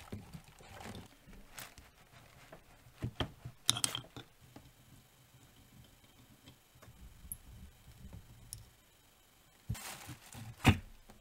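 Scattered metallic clicks and scrapes from a screwdriver working at a Lewmar anchor windlass's gearbox casing as its halves are pried apart. A couple of sharper knocks come near the end as the top housing comes loose and is lifted off.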